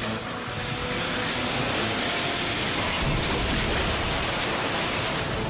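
Sound effect of a jet aircraft flying: a steady rushing engine noise that grows brighter about three seconds in.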